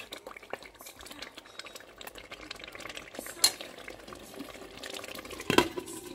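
Nigerian tomato stew frying and sputtering in a pot while a spoon stirs it. Two sharper clinks of the spoon against the pot come about three and a half seconds in and near the end.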